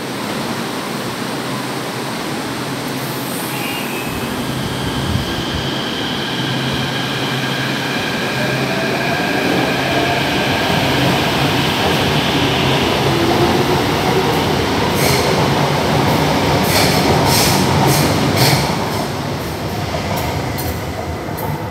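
São Paulo Metro fleet P train pulling out of an elevated station. Its traction motors whine and rise in pitch as it gathers speed, and from about two-thirds of the way in a run of sharp clicks comes from its wheels passing over rail joints. The sound is loudest shortly before the end.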